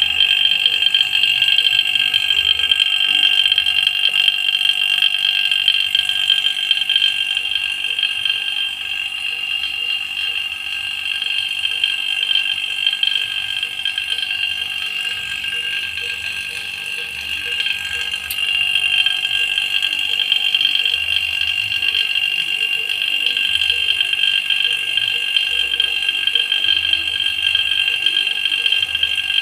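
Refrigeration vacuum pump evacuating a showcase refrigerator's evaporator, giving a steady high-pitched whine. The whine eases a little about two-thirds through, then comes back up.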